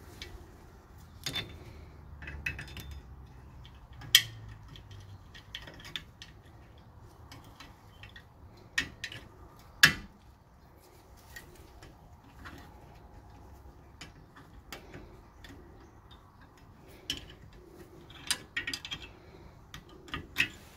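Irregular small metallic clicks and clinks of needle-nose pliers working the hold-down spring and cap of a 1977 Corvette's rear parking brake shoe, as the spring is pressed down and the cap turned to lock it. The two sharpest clinks come about four and ten seconds in.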